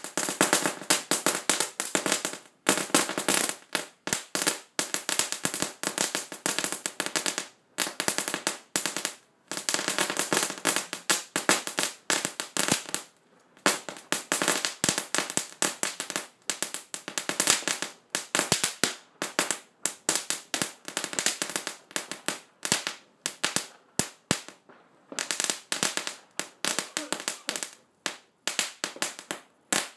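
Volcano (ground fountain) firework crackling: dense, rapid crackles and pops in long runs, broken now and then by brief pauses.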